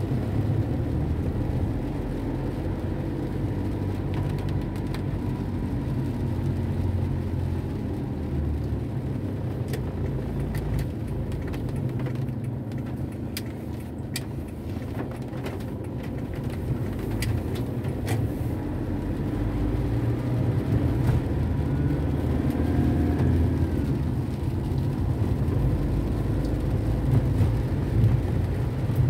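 Car interior noise while driving on a wet road: a steady low rumble of engine and tyres, with scattered light ticks of raindrops on the windshield, mostly in the middle. It grows louder in the second half.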